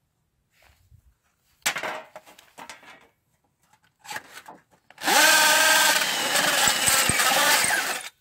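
Bosch cordless drill with a hole saw cutting into a thin tin cookie-box lid: two short bursts, then about three seconds of continuous grinding and screeching metal that stops suddenly near the end.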